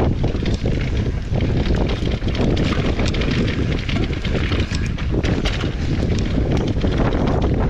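Wind buffeting the action camera's microphone as a mountain bike runs down a dirt trail, with frequent small clicks and knocks from the bike clattering over the rough ground.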